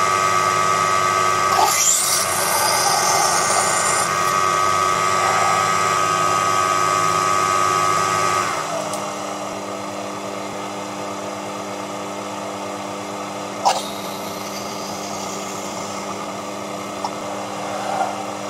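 Proxxon PD 250/E mini lathe running with a steady motor whine while a drill bit and then a reamer are fed into a spinning brass bar. About eight seconds in the whine drops to a quieter, lower note, and there is one sharp click near fourteen seconds in.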